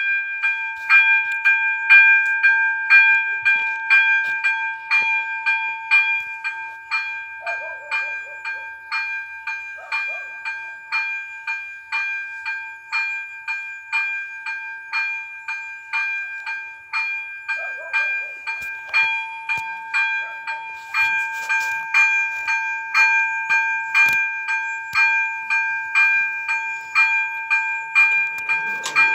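Level-crossing electronic warning bell ringing in a fast, even beat of about two strikes a second, a bright multi-tone ding: the crossing's warning that a train is approaching, sounding while the barriers are still up.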